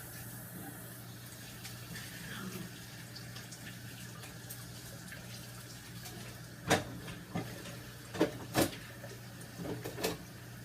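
Kitchen tap running at the sink, hands being washed, with several sharp knocks and clatters in the second half.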